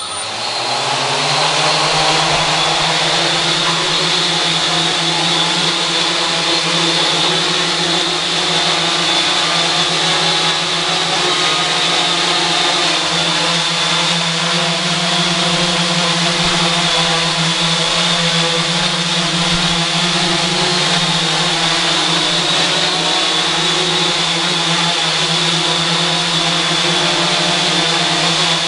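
Homemade carbon-fibre H-frame quadcopter's four brushless motors and propellers spinning up suddenly and lifting it into a hover, then running steadily: a buzz with a high whine over it that wavers slightly as the throttle is adjusted.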